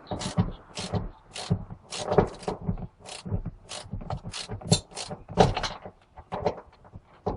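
Irregular sharp mechanical clicks and clacks, about two or three a second, of hand tools and car parts being handled during the fuel pump job.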